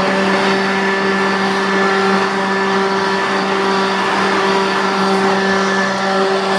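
Black and Decker LSW36 cordless vacuum motor running at a steady speed as a blower: an even motor whine over a rush of air blowing out.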